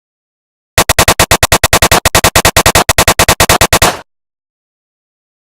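Automatic gunfire sound effect: a single loud burst of rapid shots, about ten a second, lasting about three seconds and cutting off suddenly.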